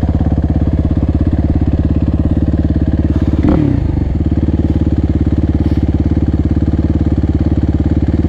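Suzuki RMX450Z dirt bike's single-cylinder four-stroke engine idling steadily close by with an even, fast pulse. A short falling sound passes over it about three and a half seconds in.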